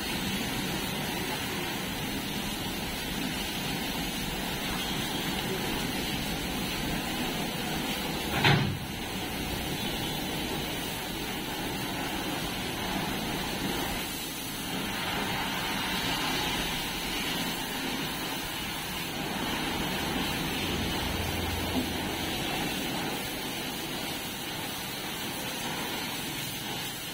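Steady hiss of water spraying from a hose onto a tractor, with one sharp knock about eight seconds in.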